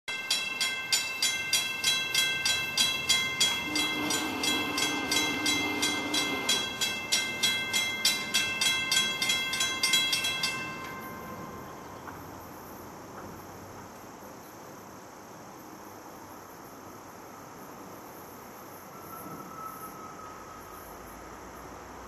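Railroad grade-crossing bell ringing rapidly, about three strokes a second, then stopping about eleven seconds in. Partway through, the distant approaching locomotive's K5LA air horn sounds for about three seconds. Only faint background hum remains once the bell stops.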